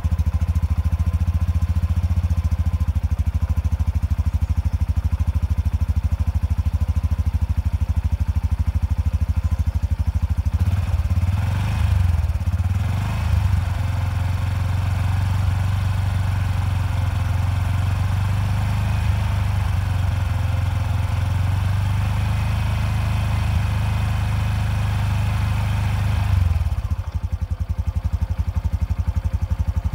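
Honda CT125 Trail 125's 125cc air-cooled single-cylinder four-stroke engine idling steadily just after starting, run briefly to circulate freshly added oil before a dipstick check. The idle wavers briefly about eleven seconds in and drops slightly in level near the end.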